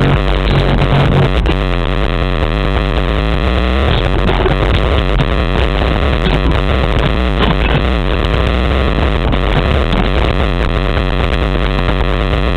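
Bass-heavy music played loud through two 10-inch Kicker Solo-Baric subwoofers, heard inside the car's cabin. The deep bass overloads the microphone into a harsh, distorted noise.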